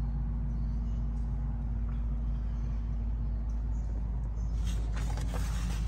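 A steady low mechanical hum, with rubbing and scraping noises starting about four and a half seconds in.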